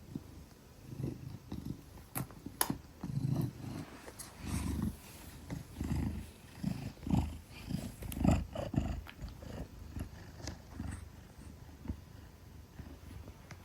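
Large Maine Coon cat purring close up, a deep rumble that swells and fades about once a second with its breathing.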